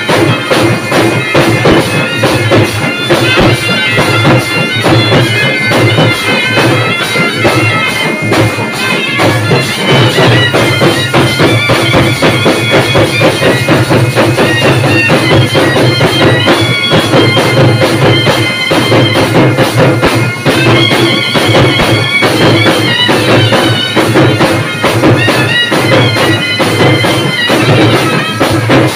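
Loud reed wind-instrument music: a held, stepping melody over a steady drone, with drumming underneath.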